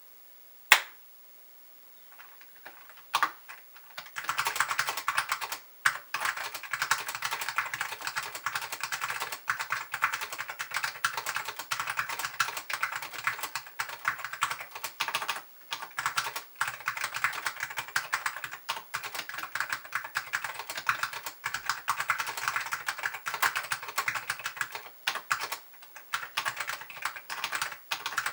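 Typing on an ASK55 polycarbonate mechanical keyboard with Alps SKCM Orange switches, lubed and paper-modded, on a 1.2 mm plastic plate: a single sharp click near the start, a few separate keystrokes, then fast continuous typing with brief pauses.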